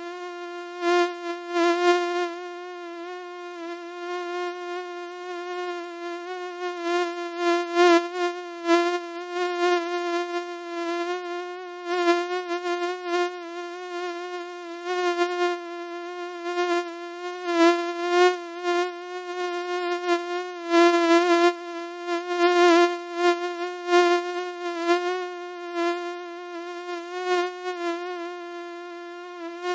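Mosquito wingbeat whine, a steady high-pitched buzz that wavers slightly in pitch and swells louder and softer irregularly, as if flying close past the ear.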